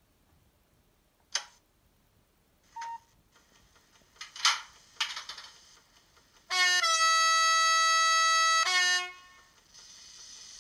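Sound decoder of an REE Modèles HO-scale model of the SNCF CC 7100 electric locomotive (CC 7128): a few sharp clicks and short hisses, then the locomotive's horn sounds steadily for about two seconds, with a brief lower note at its start and end. A soft, steady hiss starts near the end.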